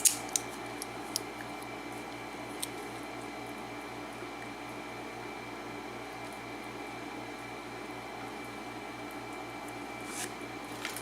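Steady low room hum with a few faint clicks of small metal lock parts being handled in the first seconds, and a brief rustle near the end.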